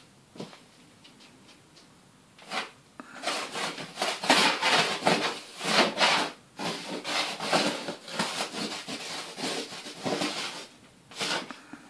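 A dry drawing stick scratching and scribbling across a stretched canvas, laying down black lines in a quick run of strokes. One stroke about two and a half seconds in, then a dense flurry of rapid scratches, and a last stroke near the end.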